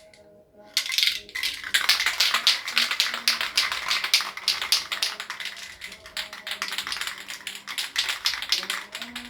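Rapid, irregular tapping and clicking, several strokes a second, starting about a second in and stopping just before the end.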